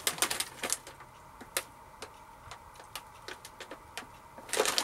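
A crinkly plastic snack packet being handled and turned in the hands, giving scattered sharp crackles, with a denser burst of crinkling near the end.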